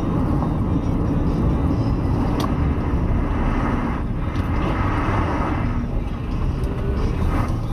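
Steady engine and tyre noise of a car driving on a wet winter road, heard from inside its cabin, with a few faint clicks.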